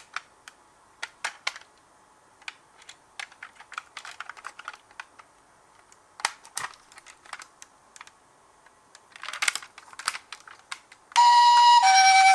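Scattered light clicks and short clattering rattles of toy minicars. About eleven seconds in, a toy ambulance's electronic two-tone siren switches on loudly, alternating a high and a low note.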